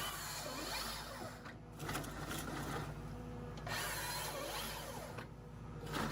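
Tractor-mounted Hypro 755 harvester head at work over a steady tractor engine drone, with two spells of rasping, grinding noise, each about a second and a half long, as stems are cut and pulled through its delimbing rollers.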